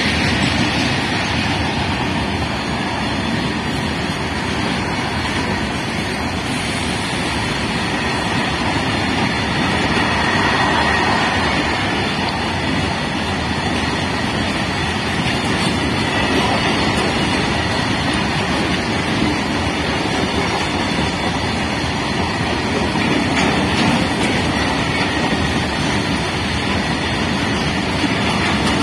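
A freight train of open-top steel wagons rolling past on the near track: a steady, loud rumble of wheels on the rails.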